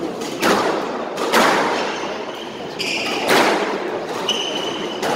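Squash rally: the ball smacks off racket and walls three times with a hard echoing crack, while sneakers squeak briefly on the wooden court floor.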